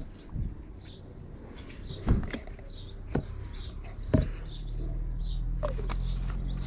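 A few sharp knocks and clicks from handling the oil bottle and measuring cup while two-stroke oil is measured out. A small bird chirps over them about twice a second, and a steady low hum comes in about two-thirds of the way through.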